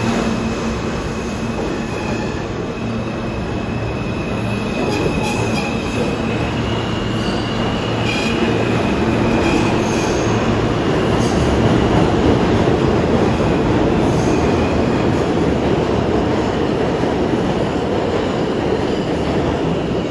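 New York City Subway E train pulling out of the station, its wheels and motors rumbling on the rails with a thin, high wheel squeal. The rumble swells toward the middle.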